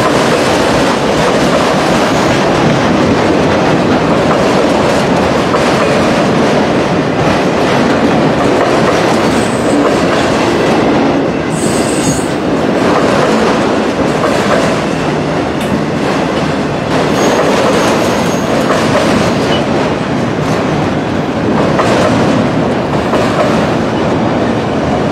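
Cars of a long CN mixed-freight manifest train rolling past close by: a steady loud rumble and clatter of steel wheels on the rails, with a few brief high-pitched wheel squeals around the middle.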